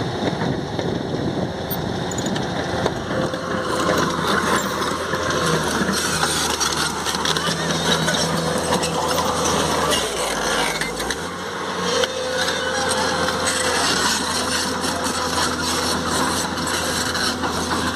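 L&T-Komatsu PC200 hydraulic excavator's diesel engine running steadily as the machine travels on its crawler tracks.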